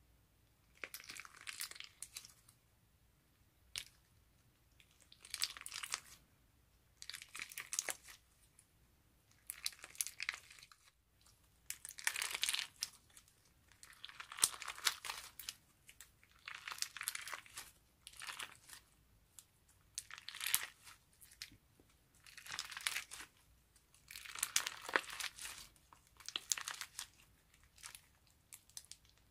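Clear crunchy slime packed with small pink apple-shaped slices, squeezed and kneaded by hand, crackling and crunching in short bursts about every two seconds.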